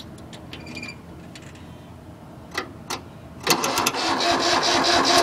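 Tractor engine being cranked by its starter for about two seconds near the end without catching, after two sharp clicks. This is a cold start attempt on an engine that has sat for about a month.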